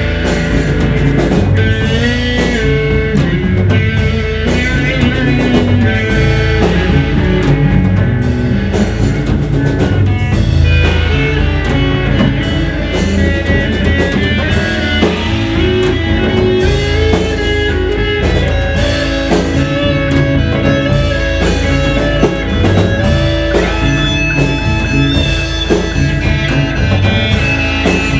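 Rock band recording: guitar lines over a steady drum kit.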